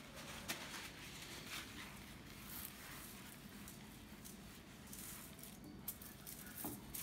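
Folded paper towel wiping oil over a foil-lined baking tray: faint rustling, with a few soft ticks.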